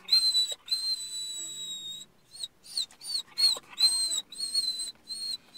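Dog whining in a car: one long high whine of about two seconds, then a string of shorter whines, some rising and falling. It is crying for its owner, who has stepped out of the car.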